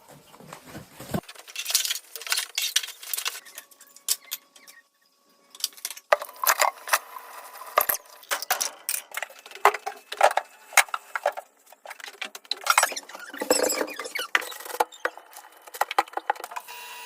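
Irregular small clicks, taps and rustles coming in uneven clusters, with a brief lull near the middle.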